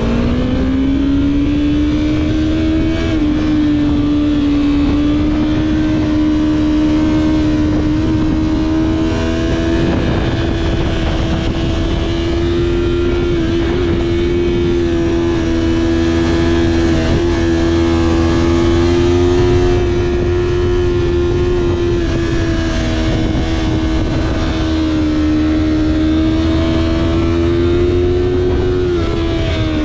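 Sport bike engine heard from on board while riding, held at a steady fairly high pitch that wavers slightly up and down with the throttle, over a constant rush of wind. The pitch rises at the very start and drops near the end as the throttle closes.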